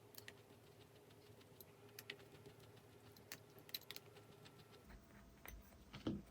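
Faint, scattered light clicks of tiny screws being driven into the beadlock ring of a 1/24-scale RC wheel with a small driver, and a soft knock near the end.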